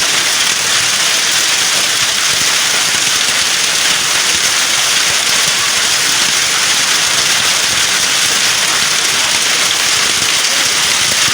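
Heavy hail shower, hailstones coming down hard in a dense, steady noise that holds without a break.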